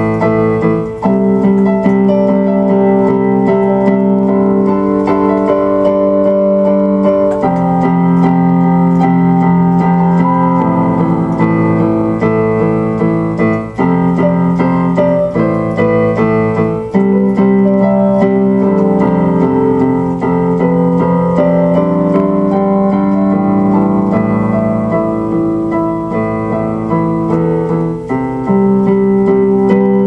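Electric keyboard music: slow, sustained chords on an electric piano sound, changing every few seconds.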